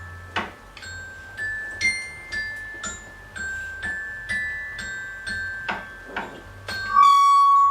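Bell-like struck notes at differing pitches, about two strikes a second, each ringing on briefly. Near the end a loud, steady high tone with overtones cuts in and is the loudest sound.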